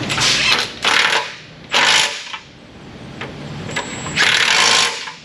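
Four short bursts of a power tool in use on the job, with quieter shop noise between them; the loudest bursts come about two seconds in and near the end.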